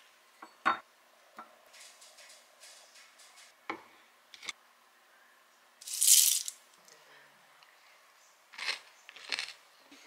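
Metal spoon clinking against a small ceramic bowl during kitchen food prep, a handful of sharp separate clinks, with a louder brief rattling rush about six seconds in.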